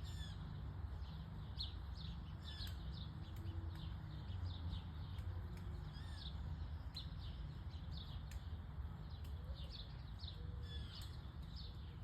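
Small birds chirping: many short, high chirps scattered irregularly, some with quick falling or rising notes. A steady low rumble runs underneath.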